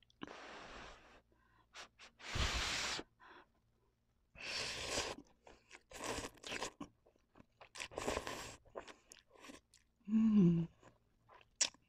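A person slurping Indomie instant noodles off a fork: about five airy slurps, roughly two seconds apart, with wet chewing between them. A short hummed voice sound comes near the end.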